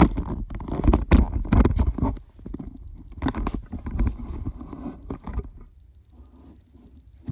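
Handling noise from a phone camera being carried and set down on a carpeted floor: rumbling knocks and rubbing against the microphone in two bursts, settling to quiet after about six seconds.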